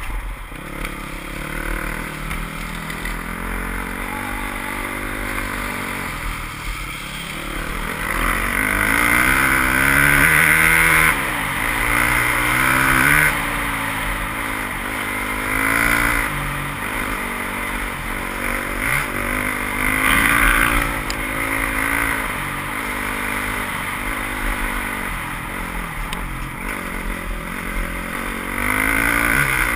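Enduro dirt bike engine heard on board, its pitch rising and falling over and over as the throttle opens and closes and the gears change over a rough dirt track, louder in several stretches of hard acceleration.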